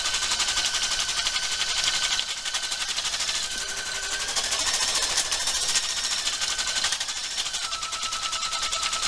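Brother NV880E computerized embroidery machine stitching at speed (850 stitches per minute): a rapid, even needle clatter, with a high motor whine that steps between two pitches several times.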